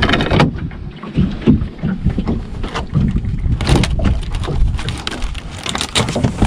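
Wind buffeting the microphone and a steady low rumble aboard a small boat. Irregular knocks and thumps are heard as a snapper is pinned down with a cloth on a plastic chilly bin lid and dispatched, a cluster of them a little past the middle.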